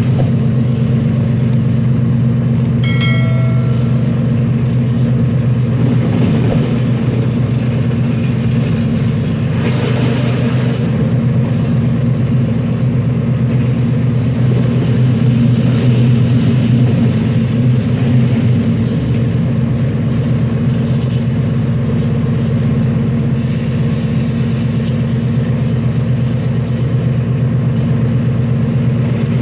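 General Electric diesel-electric locomotive engine running steadily, heard from inside the driver's cab as a loud, even low hum. A brief high tone sounds about three seconds in.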